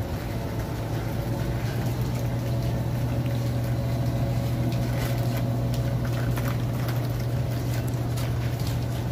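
Steady low machine hum of refrigerated display cases and freezers, with a fainter higher tone over it. A few faint knocks come in a few seconds in.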